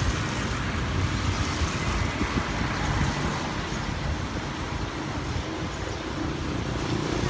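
Steady low rumble of road traffic and vehicle noise.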